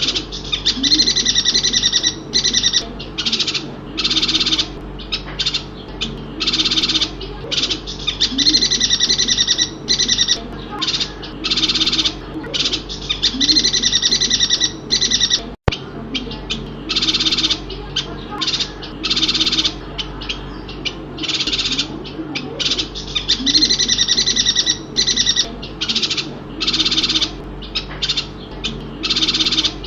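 Chestnut-crested yuhina calling in a long run of loud, high chattering phrases, each about half a second to a second long, with short gaps between them. The sound cuts out for an instant about halfway through.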